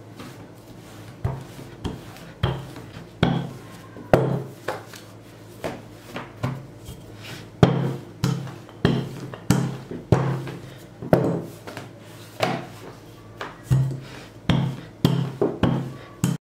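Wooden rolling pin rolling out dough on a silicone mat over a countertop: a run of wooden thuds and knocks, one with each back-and-forth stroke, roughly one to two a second. It cuts off suddenly just before the end.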